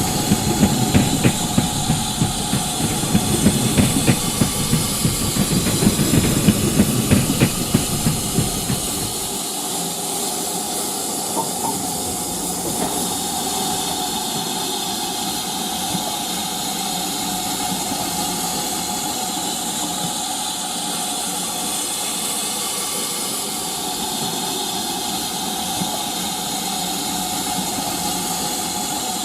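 Steam locomotive sound on a model railway: rhythmic chuffing for the first nine seconds or so, then a steady hiss with a constant hum underneath.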